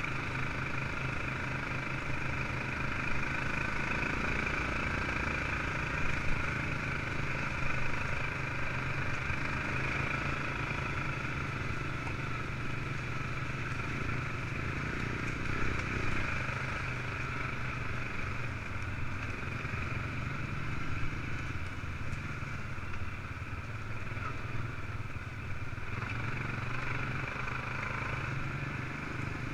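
ATV engine running steadily at low trail speed, heard from on board, with a few short knocks as the machine rides over bumps.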